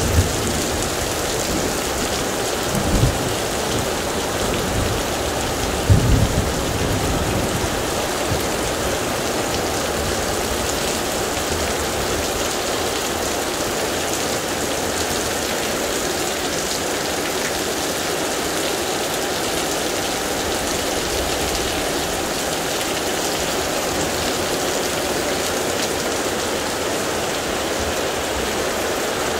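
Heavy rain pouring steadily in a thunderstorm, an even hiss. Two brief low thumps come a few seconds in.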